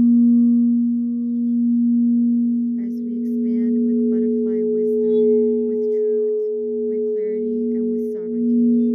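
Crystal singing bowls sounding together: two low sustained tones that swell and pulse, with a fainter higher tone joining about halfway in. Short high chirping sounds come and go over them.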